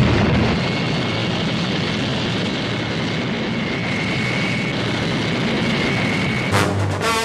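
Steady jet engine noise with a thin high whine, the film's sound effect for a Thunderbird craft in flight. A brass music fanfare comes in near the end.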